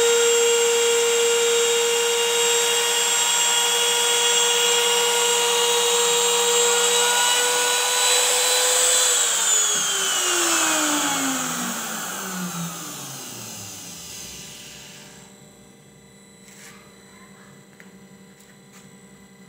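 Trim router spindle of a homemade CNC machine running at full speed with a steady high whine, then switched off about halfway through and winding down, its pitch falling over about five seconds. A few faint clicks follow near the end.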